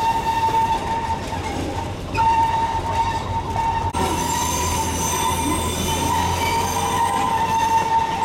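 Steel wheels of a Darjeeling Himalayan Railway narrow-gauge toy train squealing on a tight curve: one high, steady ringing squeal that breaks off briefly about two seconds in and again near four seconds, over the low rumble of the running train.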